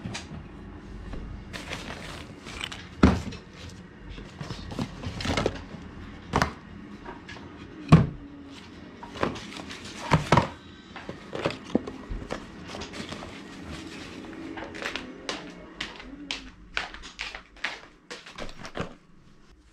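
Handling noise as a cardboard blood glucose meter box and a zipped fabric case are picked up, carried and set down: irregular knocks, taps and rustles, the loudest knocks about three and eight seconds in.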